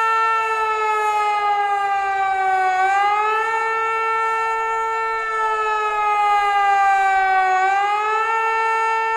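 Hörmann HLS 273 pneumatic high-performance civil defence siren sounding the rising-and-falling warning signal: a stack of tones that sinks slowly in pitch for about four seconds, then swoops quickly back up, twice. The compressed-air siren has a technical fault that makes it grow weaker from signal to signal.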